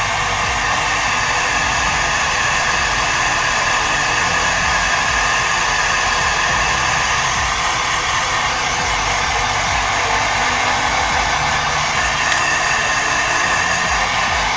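Heat gun blowing steadily, heating the end of a PVC conduit to soften it.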